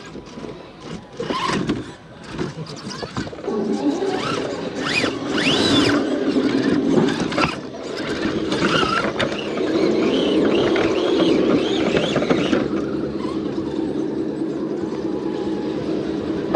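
Radio-controlled crawler truck's electric motor and geartrain whining steadily as it drives, with clicks and knocks of the truck against rock over the first few seconds. The whine has a few rising and falling squeals on top and eases a little about two-thirds of the way through.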